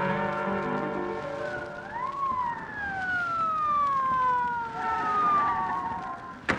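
Radio-drama sound effect of a police car siren: after a closing phrase of music, it winds up about two seconds in, then falls slowly for about four seconds. A sharp click comes near the end.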